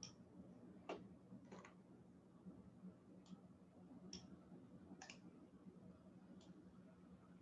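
Faint computer mouse clicks, about seven at irregular intervals, over a quiet steady low hum.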